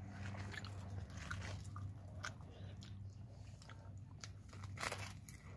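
Fried lumpiang shanghai (Filipino spring rolls) being bitten and chewed close to the microphone, with irregular crisp crunches. A low steady hum runs underneath.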